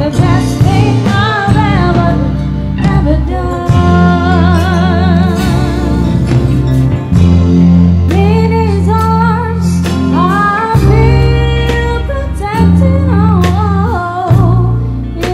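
A woman singing a slow worship song, holding notes with vibrato, backed by a live band of drums, electric guitar and keyboard.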